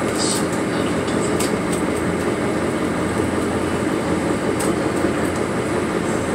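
Steady drone and rumble of a party fishing boat's engines under way, heard inside the cabin, with a few faint clicks over it.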